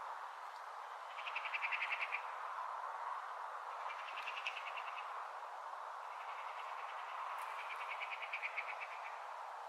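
Eurasian magpie giving its harsh rattling chatter in three bursts, the last one longest, over a steady background hiss.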